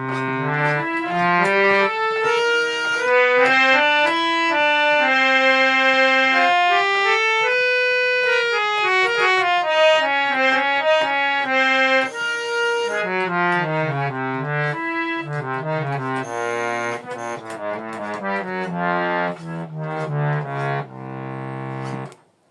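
Harmonium, a hand-pumped reed organ, played before its repair: a melody of steady reedy notes over held lower notes, several sounding at once, the notes changing about every half second to a second, stopping near the end.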